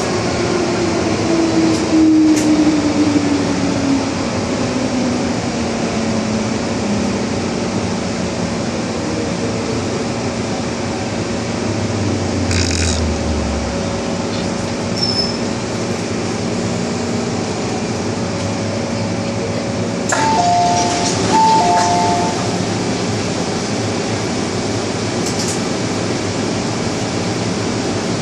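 MTR Tsuen Wan Line M-Train (A227/A214) running with a steady rolling rumble. Its traction whine falls steadily in pitch over the first several seconds. A few sharp clinks come through, and a short two-note electronic beeping sounds about twenty seconds in.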